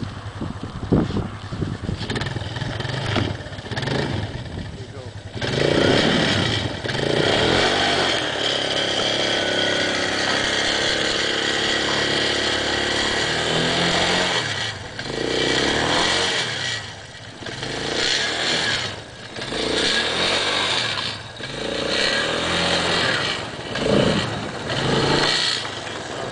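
Suzuki quad's engine revving hard as its rear wheels spin in deep snow while it is pushed free. The engine picks up about five seconds in, with its pitch climbing. From about halfway on the revs rise and fall in repeated surges.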